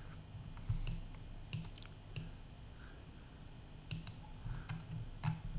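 A few scattered clicks of a computer mouse and keyboard, about six in all, short and sharp.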